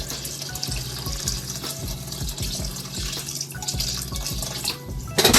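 Water pouring steadily into a cooking pot of rice, with a short, louder rush near the end.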